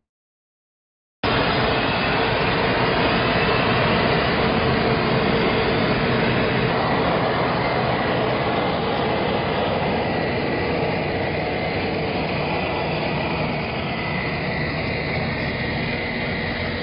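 Loud, steady engine noise from a heavy vehicle running, starting abruptly about a second in.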